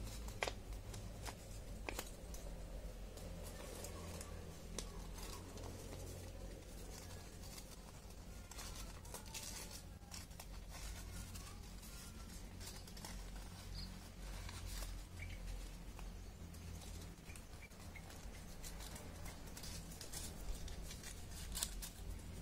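Sheet of origami paper rustling and crinkling in the hands as it is folded and creased, with scattered soft clicks and crackles over a low steady hum.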